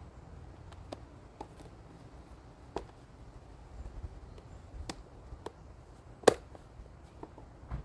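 Squirrel baffle pieces being handled and clipped together: a scattering of sharp clicks and taps, the loudest about six seconds in, over a low rumble.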